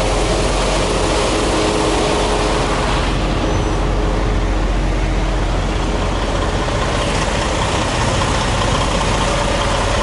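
Heavy diesel truck engines running in a steady, unbroken noise: a low rumble with a droning hum.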